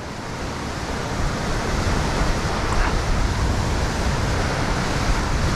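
Ocean surf breaking and washing over a rock ledge. It is a steady rushing wash that builds over the first second or so.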